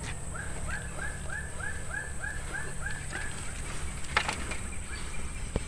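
An animal calling over and over: about ten short, evenly spaced calls in quick succession that stop about three seconds in. A couple of sharp knocks follow later.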